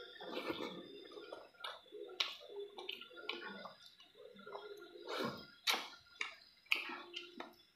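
Close-miked mouth sounds of rice and chicken curry being eaten by hand: wet chewing and lip smacks, heard as a string of irregular clicks, with a few sharper ones around two, five and seven seconds in. Soft squishing comes as fingers mix the food on the plate.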